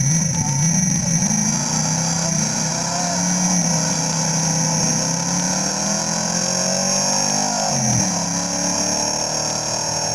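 Two drag-race cars' engines revving at the start line with a wavering pitch, then a sharp dip and climb in pitch about eight seconds in as they launch down the quarter-mile strip.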